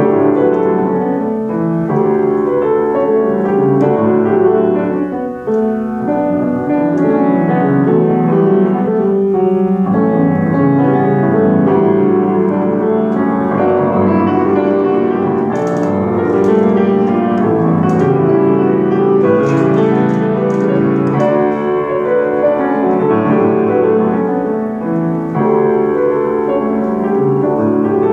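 Grand piano played solo: a dense, continuous passage with many notes sounding together and no pauses.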